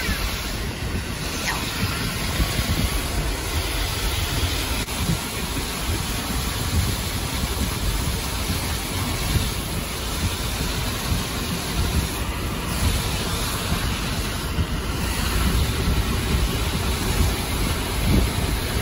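A car being driven: steady road and engine noise heard from inside, with a heavy low rumble.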